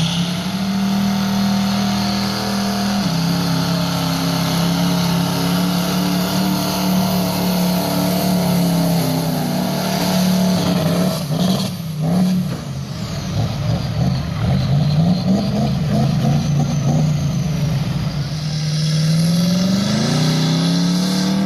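Performance diesel pickup truck engine held at high revs under load, its pitch mostly steady, dipping and then rising again near the end.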